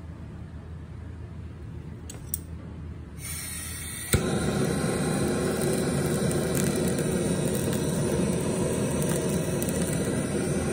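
Handheld butane kitchen blowtorch searing a strip of cutlassfish: a faint hiss of gas about three seconds in, a sharp ignition click about four seconds in, then the flame runs with a steady, loud hiss.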